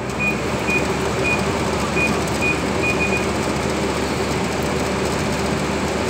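Electric fan motor with a newly replaced bearing, switched on and running steadily: a loud, even whir with a low hum. A run of short high beeps sounds during the first three seconds.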